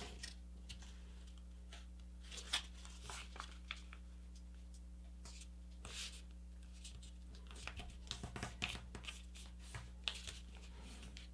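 Faint rustling and crinkling of a sheet of paper being unfolded and creased by hand, in scattered soft crackles.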